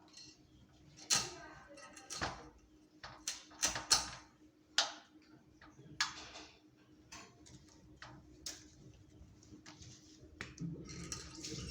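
Irregular sharp clicks and knocks of hands and utensils at kitchen work, a dozen or so spaced unevenly. Near the end a tap starts running.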